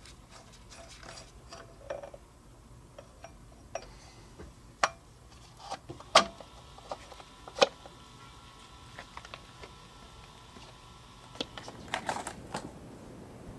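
Scattered clicks and knocks of tools and parts being handled during a car oil change. Three sharper knocks fall in the middle and a short cluster comes near the end.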